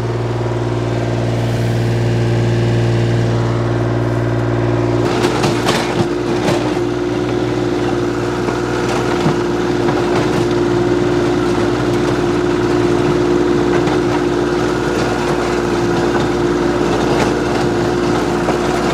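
Kioti compact tractor's diesel engine running steadily. From about five seconds in, a three-point rotary tiller is working behind it, its tines churning rocky clay soil with scattered sharp knocks, and the engine running under load.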